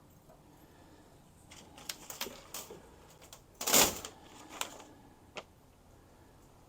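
Thin metal hanging chains for LED shop lights being handled, a cluster of light clinks and rattles with the loudest rattle just before four seconds in.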